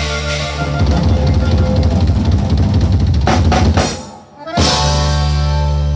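Live conjunto band playing accordion, guitars, bass and drum kit, the drums prominent. About four seconds in the band breaks off for half a second, then comes back in on a long held chord.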